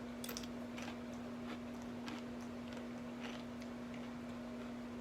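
Faint, irregular crunches of a Tostitos tortilla chip being chewed, a handful of short crunches over the first few seconds. A steady low hum is also present.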